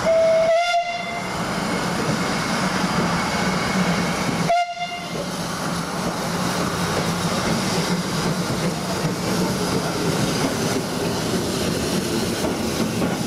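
Steam whistle of the 0-4-0 saddle tank locomotive Dunlop No. 6, blown twice: a blast of about a second, then a short toot about four and a half seconds in. Between and after the toots the engine runs steadily as it draws in along the track.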